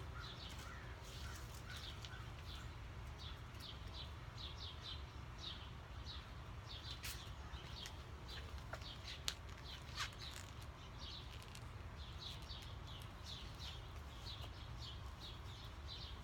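Faint songbirds chirping in short, quick runs over a low steady rumble. A few sharp clicks come around the middle as a belt buckle is fastened.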